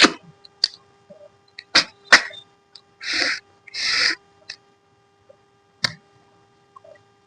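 Close-miked eating sounds: a few sharp mouth clicks and smacks, then two short slurping sucks of about half a second each, around three and four seconds in, and one more click near six seconds.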